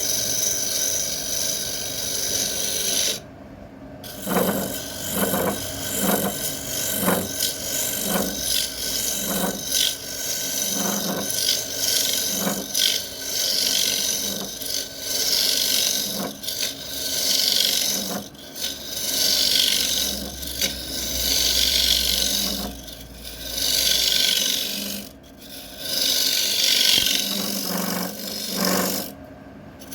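Wood spinning on a lathe while a turning tool works it: a steady scraping, rasping noise in repeated strokes about once a second, over the hum of the lathe. It drops out abruptly twice, near the start and near the end.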